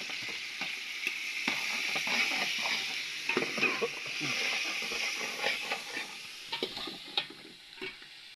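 Shrimp sizzling in hot oil in a steel pot while being stirred, with frequent clinks and scrapes against the pot. The sizzle dies down near the end.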